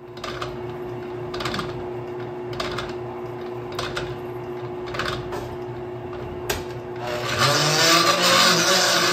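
Die grinder running against a rubber balloon tire spinning on a lathe, over a steady motor hum. At first it scrapes sharply about once a second, catching the tire's high spots once each turn as it trues the out-of-round tire. From about seven seconds in the grinding turns continuous and louder.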